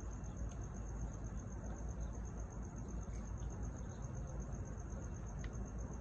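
A cricket chirping: a steady, high, rapidly pulsing trill that never stops, over a low steady background rumble. A few faint clicks are scattered through it.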